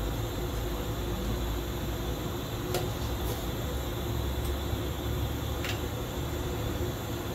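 Metal ladle clinking sharply twice against a stainless steel pot while stirring chicken pieces, over a steady low hum.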